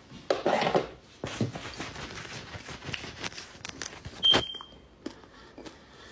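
Rustling, knocks and clicks of a phone being handled and moved, with one short high-pitched beep about four seconds in.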